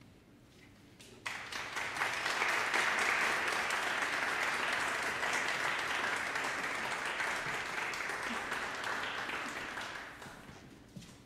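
Audience applause in a concert hall, starting suddenly about a second in after the orchestra has gone quiet, holding steady, then fading out near the end.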